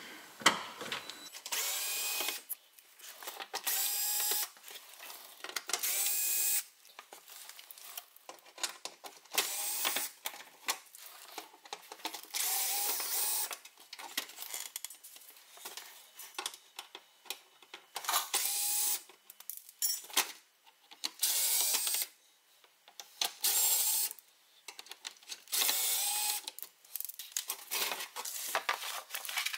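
Cordless drill/driver backing out the fasteners of a car's plastic undercarriage cover in about a dozen short runs, some winding up with a rising whine, with pauses between.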